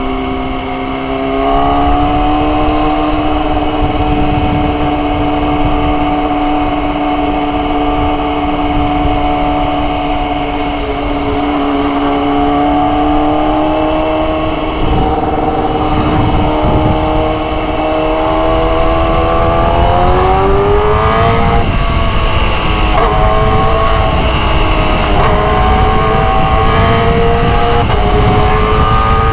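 Motorcycle engine running at a steady pitch, then climbing in pitch about twenty seconds in and holding higher, over rough wind and road rumble.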